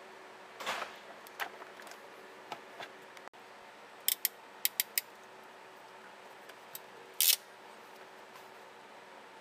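Hand tools on car wiring: a brief rasp as wire strippers work a red wire, then a ratcheting crimper clicking about five times in quick succession as it crimps a connector onto the wire, and one louder snap about seven seconds in.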